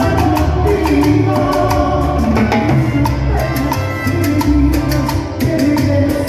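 A live tropical dance band playing a Latin song, with a steady rhythm of percussion strikes over bass and melodic lines.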